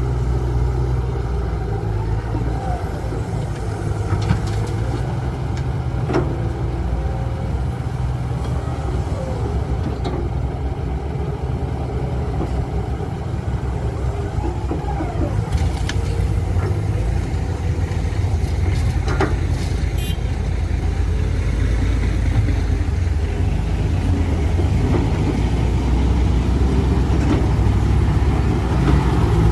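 Steady low diesel engine running from a Komatsu HB205-1 hybrid excavator and a dump truck as the excavator loads soil into the truck's bed. A few sharp knocks and thuds come now and then.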